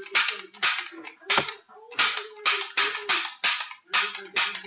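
A rapid series of short, sharp hissing puffs, like toy-gun shots, about two a second.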